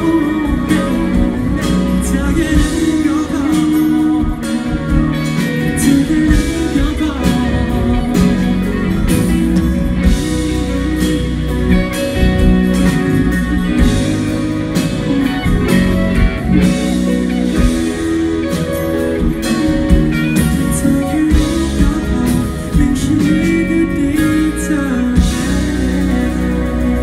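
Live rock band playing electric guitars, bass, drums and keyboard, with a male lead singer, loud through the venue's PA.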